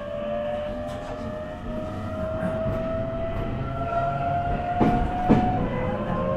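Toyo Denki GTO-VVVF inverter and traction motors of a JR East E127 series electric multiple unit accelerating from a station stop: a rising electronic whine over wheel and rail rumble. The whine drops back and starts climbing again near the end. Two sharp knocks come about half a second apart.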